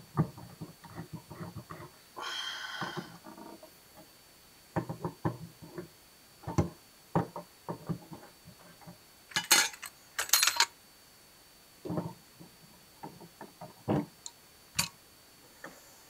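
A dimmer switch's metal mounting strap and screws being worked into an electrical wall box by hand: scattered clicks and knocks, a longer scrape a couple of seconds in and two sharp scrapes past the middle.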